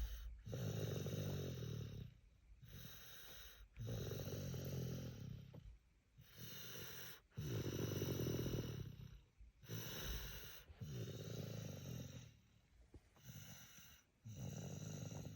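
A toddler snoring in deep sleep, one loud, low snore on each breath and a softer breath between, repeating steadily every three to four seconds.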